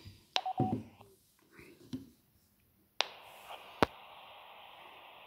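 Baofeng handheld radio: a click and a short beep as transmission ends, a few handling knocks, then about three seconds in another click and a faint steady hiss from its speaker as the squelch opens on an incoming signal.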